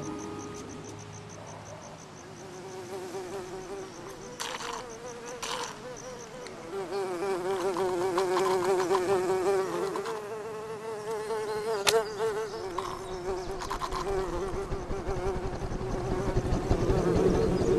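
A fly buzzing close by, its pitch wavering and growing louder in the middle, with a few sharp clicks. A low rumble builds near the end.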